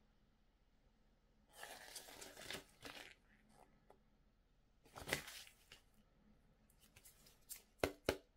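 Packaging being handled: a few short bursts of crinkling, tearing-like rustle, then a couple of sharp plastic clicks near the end.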